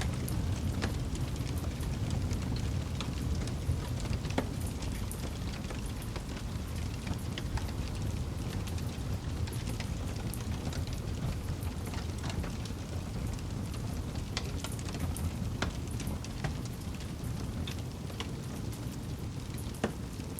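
Wood campfire burning: a steady low rumble under frequent, irregular crackles and small pops of the burning wood.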